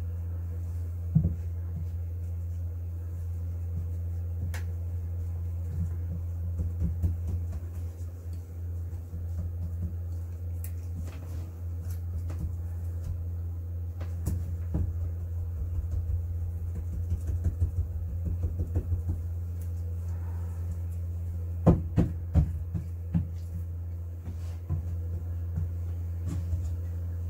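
Gloved hands and a brush working epoxy-wetted fiberglass tape into a hull joint: scattered soft taps, dabs and rustles. A sharp knock comes about a second in and a cluster of knocks about five seconds before the end, all over a steady low hum.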